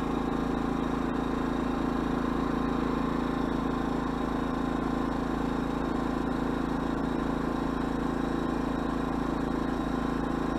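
Predator 2000-watt inverter generator's small single-cylinder engine running at a steady speed, with an even hum.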